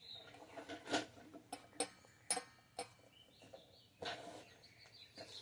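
Light metallic clinks and knocks, about five in two seconds, some with a short ring, as a steel wheel spacer is handled and settled into the wheel hub against the bearing.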